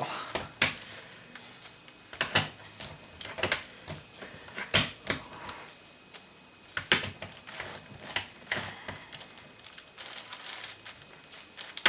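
Plastic clicks and clacks of a ShengShou 9x9 speed cube as its layers are turned by hand, coming irregularly a fraction of a second to a second or so apart. The layers turn stiffly and must be lined up exactly before they move.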